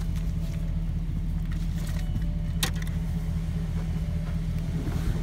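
Steady low hum of the pickup truck idling, heard from inside the cab, with a single sharp click about two and a half seconds in and light rustling from the camera being handled.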